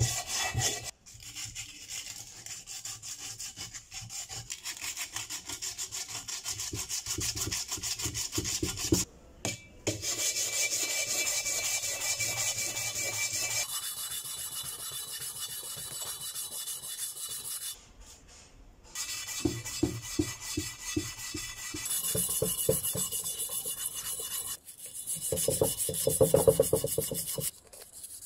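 Hand sanding of an old Mini Cooper aluminium alloy wheel: an abrasive pad and sandpaper are rubbed back and forth over the metal in quick rasping strokes, with a few brief breaks.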